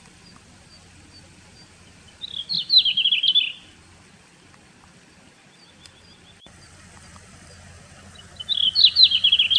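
Male red-flanked bluetail singing: a short, quick warbling phrase about two seconds in and the same phrase again near the end, with faint high ticking notes between.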